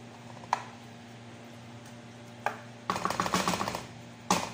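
Wooden spoon knocking and scraping against a metal baking tray while sauce is spread over diced potatoes. There is a single knock about half a second in and another just past the middle, then a quick run of scraping taps about three seconds in and a sharp knock near the end.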